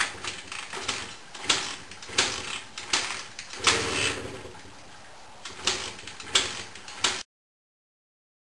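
Minsk 125 two-stroke motorcycle being kick-started over and over: sharp ratcheting clanks of the kickstarter mechanism, roughly one kick every three-quarters of a second with a short pause in the middle. The engine does not catch; the bike is hard to start after sitting about two weeks. The sound cuts off suddenly near the end.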